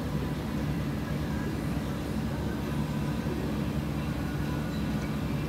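Steady low background hum of a restaurant dining room, with a faint murmur of voices.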